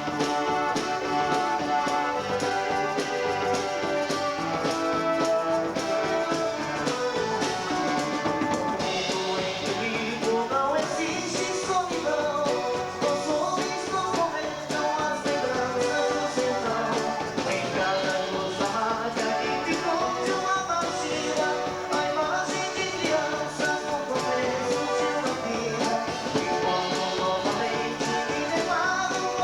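Live dance-band music: a full band playing a song at steady volume, with a dense mix of sustained instrument notes and a regular beat.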